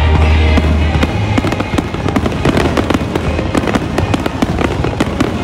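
Aerial fireworks going off in a dense, rapid barrage of bangs and crackling from many shells at once, over the show's music, which holds a low note for about the first second.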